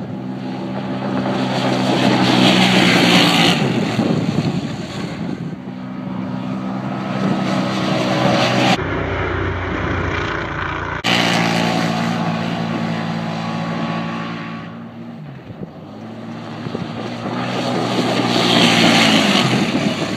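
Arctic Cat Wildcat X side-by-side's V-twin engine running under throttle as it drives across sand, getting loud as it passes about three seconds in and again near the end. Halfway through, the engine gives way for a couple of seconds to a low rumble.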